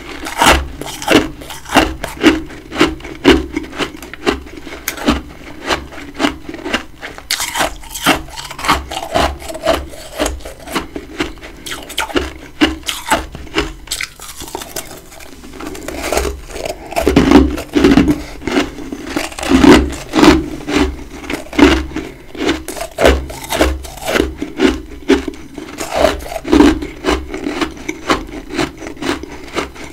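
Close-miked chewing of big chunks of freezer frost: a fast run of crisp, grinding crunches, several a second, that eases off briefly about halfway through and then picks up again.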